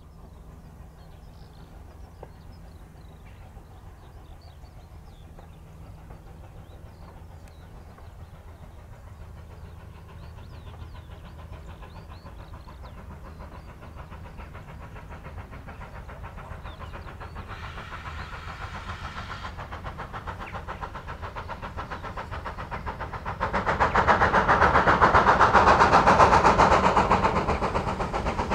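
GWR Manor class 4-6-0 steam locomotive approaching, its sound slowly growing. It gives one whistle blast of about two seconds just past halfway, then passes close and loud near the end, with rapid exhaust beats and rolling rail noise.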